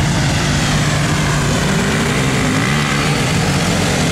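Off-road engines running steadily, with one engine's pitch rising and falling a few times about halfway through, fitting a four-wheeler ATV revving as it powers across a shallow mud puddle.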